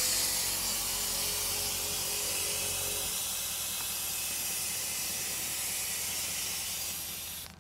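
Kelderman air-ride suspension dumping air from its airbags with a steady, loud hiss as the truck lowers all the way down; the hiss cuts off suddenly just before the end. A low hum underneath stops about three seconds in.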